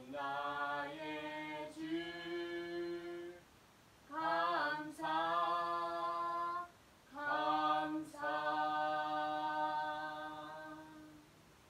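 A man singing a worship song unaccompanied, in three phrases of long held notes; the last note fades out near the end.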